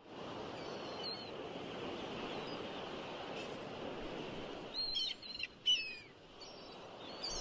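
Birds calling, short downward-sliding chirps, once about a second in and several together around five seconds in, over a steady rushing background noise.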